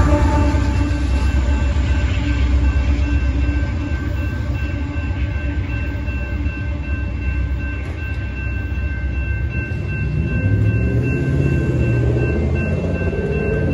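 The rear GE AC44CW distributed-power locomotive of a Union Pacific freight train rumbles past and fades as the train clears the crossing. The grade-crossing bell rings steadily throughout. From about ten seconds in, a deeper engine sound rises.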